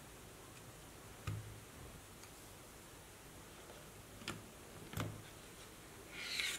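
Handling noise from a small wooden skewer car chassis with rubber wheels: three light, separate clicks as the parts are knocked together and set on a tabletop, then a short scraping rustle near the end as it is turned over on the table.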